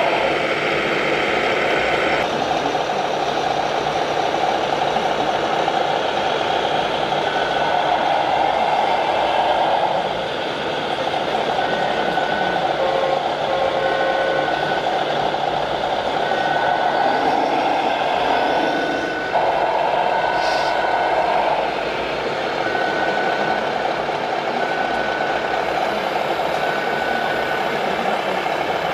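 Radio-controlled scale trucks' sound modules playing diesel truck engine sounds as they crawl in a convoy. A reversing beeper sounds a short beep about once a second from about a quarter of the way in.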